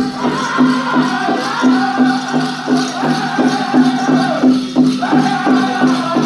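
Powwow drum group performing a chicken dance song: a big drum struck in a steady, even beat under high-pitched group singing.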